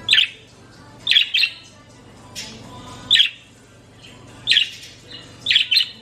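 Green budgerigar (budgie) chirping in reply to being called by name: about eight short, sharp chirps spread over a few seconds, some in quick pairs.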